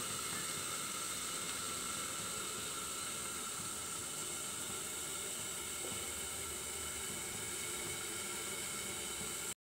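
Steady low hiss of a covered kadai of chaya leaves steaming over a low gas flame. It cuts off suddenly near the end.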